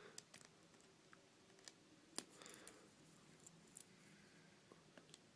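Faint, scattered clicks of a tiny hex driver working the small screws out of an HTC Droid Incredible 2's frame, the clearest about two seconds in.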